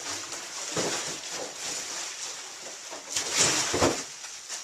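Rustling and handling noise from packing material and cabinet parts being moved about, strongest for about a second near three seconds in.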